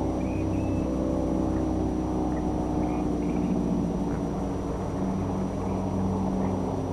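An engine drones steadily, its pitch sinking slowly.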